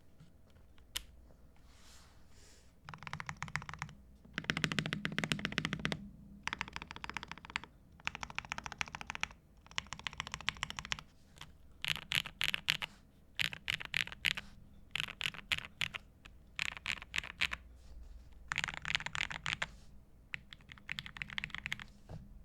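NK87 mechanical keyboard being typed on in quick bursts of rapid key clicks, each a second or two long with short pauses between. One longer, louder and deeper-sounding run comes about four to six seconds in.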